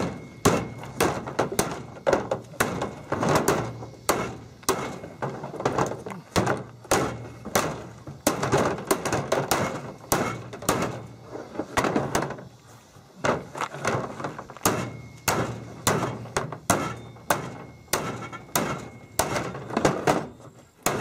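A hammer beats repeatedly on a 0.200-inch-thick HDPE plastic canopy shell lying on a pickup tailgate. The blows come one or two a second, each a sharp whack. This is an impact test of a shell weathered for four years, and it shows no sign of breaking.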